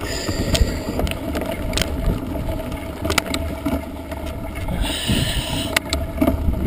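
Mountain bike with knobby tyres rolling over a rough stony dirt track, the frame rattling with scattered sharp clicks and knocks over the stones. Steady wind buffeting on the microphone rumbles underneath.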